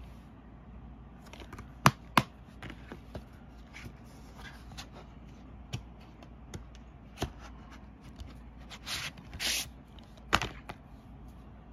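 Plastic DVD cases being handled: two sharp snaps about two seconds in as a case is shut, then scattered clicks and taps, and two short scraping swishes near the end as a case is slid about.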